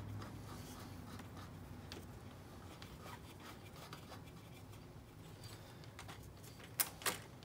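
Faint rubbing and light taps of hand work on small motorcycle parts, with two sharp clicks a little before the end.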